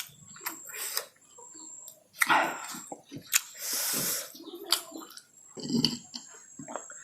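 Close-miked chewing of food, with irregular wet mouth clicks. About three and a half seconds in there is a longer noisy sound lasting about a second.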